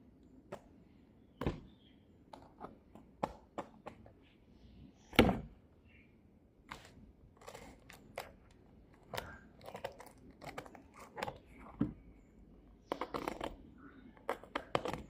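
Parcel packaging being handled and opened by hand: an irregular string of sharp taps and knocks with rustling and tearing in between, the loudest knock about five seconds in and a quick flurry of handling near the end.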